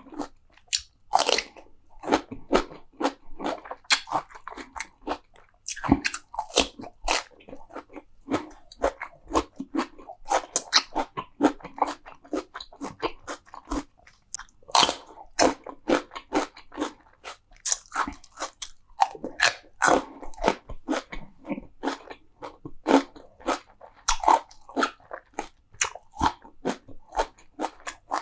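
Close-miked eating of crunchy food: a dense run of crisp crunches and wet chewing, with a few louder bites breaking in now and then.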